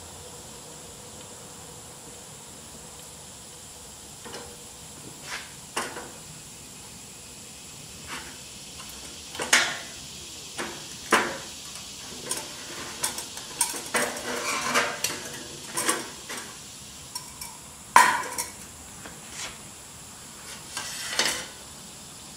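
Metal mess-kit pot, lid and stove windscreen of a Swedish M40 stove set clanking and clinking as they are lifted apart and set down, a string of short knocks, the loudest about 18 seconds in.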